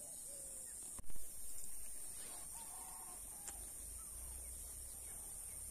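Crows cawing now and then in short calls, over a steady high-pitched hiss. A sharp knock about a second in is the loudest sound.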